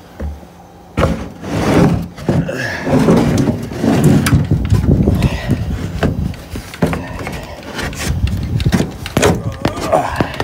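A wooden transom slab being worked into the stern of an aluminum jon boat: wood scraping and knocking against the metal hull. It starts about a second in, in repeated shoves and knocks.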